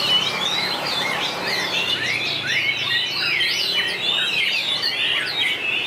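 White-rumped shama singing: a continuous stream of rapid, varied whistled phrases that sweep up and down in pitch.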